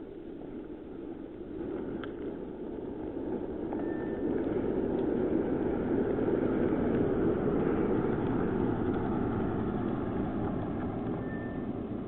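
Car driving on the road, a steady tyre and engine noise that grows louder over several seconds and eases slightly near the end.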